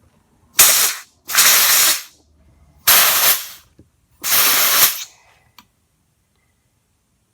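Compressed-air blow gun with a rubber tip fired in four short blasts, each a loud hiss of escaping air lasting about half a second to under a second. The air is being forced into a brake wheel cylinder to push out a seized piston, which is not budging and lets the air leak around it.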